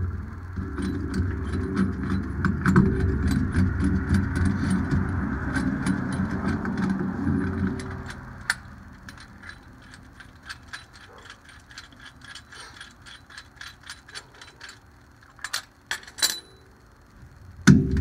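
A ratcheting tool clicks steadily, about three clicks a second, as a brake caliper piston is screwed back into its bore. A low steady machine rumble runs under it and stops about eight seconds in.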